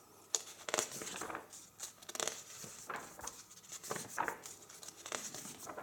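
Faint paper rustling as a hand brushes and grips the glossy pages of a large hardcover book, with scattered short rustles and light taps.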